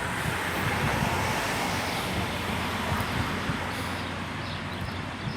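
Road traffic going by: a steady rumble and hiss of passing vehicles, a little louder in the first couple of seconds and easing off toward the end.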